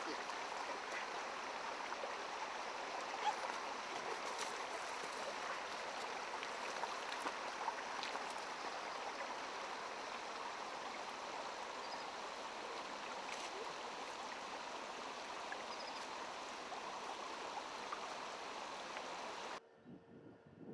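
Shallow stream flowing over stones: a steady rushing of water with a few faint clicks over it. It cuts off abruptly near the end.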